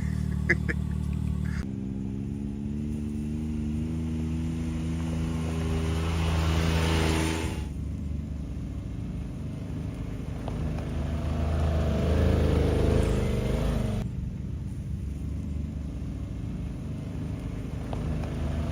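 A vehicle engine pulling away and accelerating, its pitch rising steadily for several seconds, then dropping sharply at a gear change about seven and a half seconds in, and building again a few seconds later.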